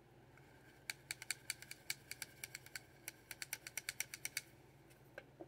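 A makeup brush tapping and clicking against a small plastic cosmetics pot as it picks up color: a quick run of light clicks, about eight a second, starting about a second in and lasting some three seconds.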